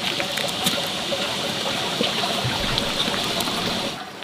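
Water bubbling at a boil in a large pot of bánh chưng, a steady watery rushing with a few light clicks, which drops away abruptly near the end.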